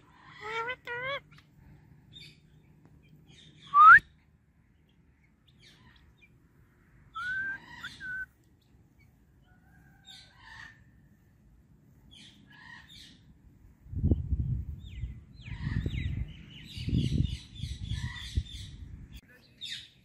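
Indian ringneck parrot giving short gliding chirps, a loud rising whistle about four seconds in, and scattered softer calls. Late on, a low rumbling noise comes in, with fast rhythmic chirping high above it.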